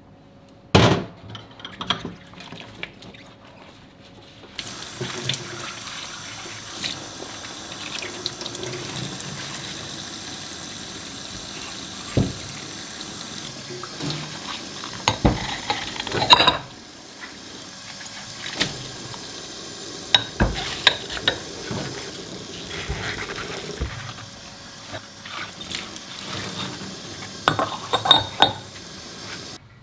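Dishes washed by hand at a stainless steel sink: a tap runs, starting about four and a half seconds in and turning lower after about sixteen seconds, with clinks and knocks as ceramic and glass bowls are handled and set down.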